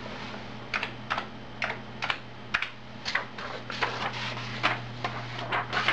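Computer keyboard being typed on: a string of separate key clicks at an uneven pace, about two to three a second, as a word is deleted and a new one typed.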